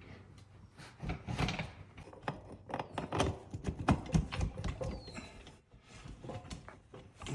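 Clanks, clicks and rubbing of metal parts as a dirt bike's rear wheel is fitted back into the swingarm, with a short falling squeak about five seconds in.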